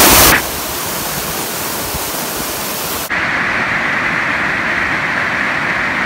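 Steady rush of a waterfall pouring into a rocky pool. About three seconds in the sound shifts abruptly to a duller, narrower rush.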